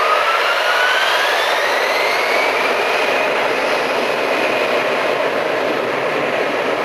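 Airbus A321-112's CFM56 jet engines spooling up to takeoff thrust: a loud roar with a whine that rises in pitch over the first three seconds, then holds steady.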